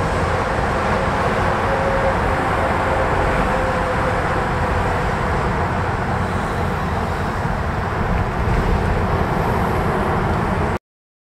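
Steady outdoor street ambience, a wash of road traffic noise, that cuts off suddenly near the end.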